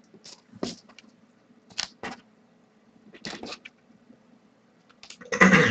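Short, scattered rustles and light ticks of trading cards being handled and slid on a table, with a faint steady hum underneath and a louder rustle near the end.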